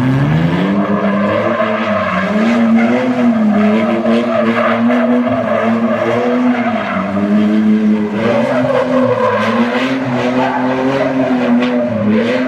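A car engine revs up sharply and is held at high revs, its pitch wavering up and down, while the tyres spin and squeal as they burn rubber.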